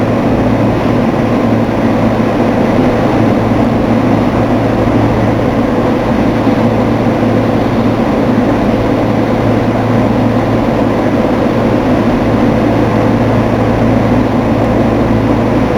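Steady rumbling hum of a subway train standing at an underground station platform, unchanging throughout.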